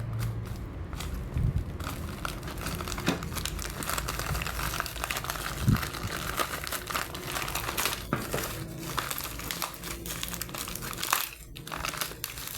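Packaging being handled and opened, crinkling and rustling continuously with many small crackles and a few dull knocks, the loudest about six seconds in.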